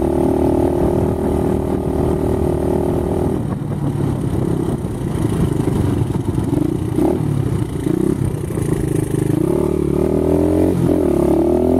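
Small single-cylinder dirt bike engine running under way. It holds steady revs for the first few seconds, then its revs waver, and near the end it revs up in rising sweeps with a brief drop between them, like a gear change.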